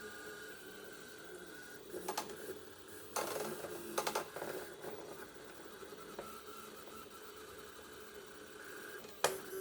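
Stepper motors of a robotic-arm 3D printer driving the arm through a print. They make a steady whine that steps in pitch as the moves change, broken by louder rattling bursts about two seconds in, from three to four seconds, and near the end.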